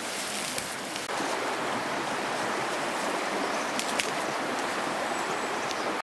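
Steady rush of a fast-flowing river over stones, stepping up in level about a second in, with a couple of faint clicks near the middle.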